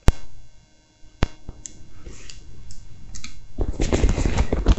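Two sharp clicks about a second apart, then near the end about a second of cloth rustling with rapid small clicks as hands work at the front of a heavy jacket.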